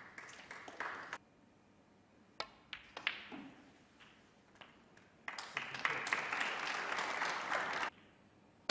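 Sharp clicks of snooker balls striking each other, a few in quick succession. Audience applause is heard briefly at the start and again for about two and a half seconds past the middle, cutting off suddenly.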